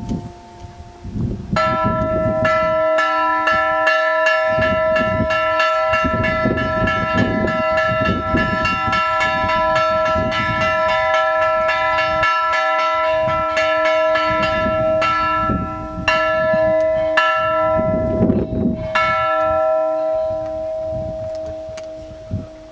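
Greek Orthodox church bells chimed by hand in a free, irregular 'creative chiming' pattern: rapid strikes over steadily ringing bell tones. The chiming starts after a short lull, breaks off briefly a few times, and dies away near the end.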